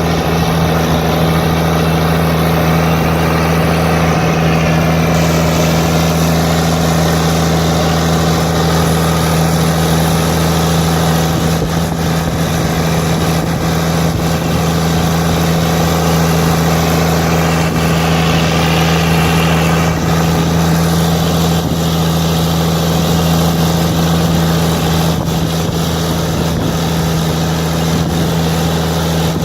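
Tractor diesel engine running steadily under load in the field, holding an even pitch without revving up or down.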